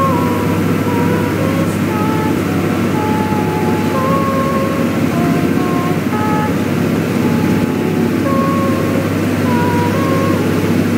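A boat's engine running steadily under way, with wind and rushing water from the wake. Faint held notes at changing pitches, like a thin melody, drift over it.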